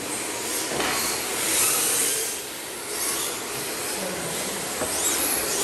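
Electric RC drift cars running on the track: a steady hiss of hard drift tyres sliding, with the motors' whine rising and falling briefly near the end.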